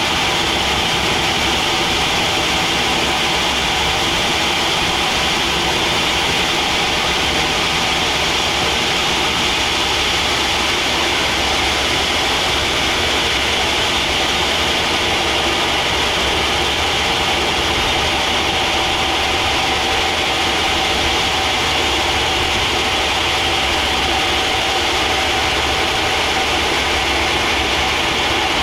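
Sawmill machinery running steadily: a constant, unbroken mechanical noise with a steady hum.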